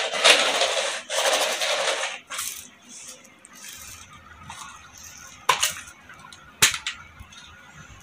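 Manual roller-brush carpet sweeper, a green plastic box with three bristle rollers, brushed over a door mat: a loud scratchy sweeping sound for the first two seconds. After a quieter stretch come two sharp plastic clicks about a second apart as its lid is unlatched and opened.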